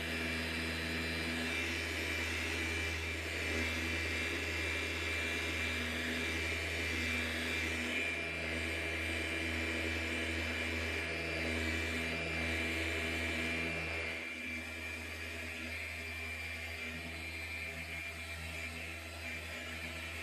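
Festool Rotex RO 150 random-orbit sander running under load with a dust extractor drawing through its hose, stripping an old stained finish to bare wood. A steady motor whir with a high whine, a little quieter from about fourteen seconds in.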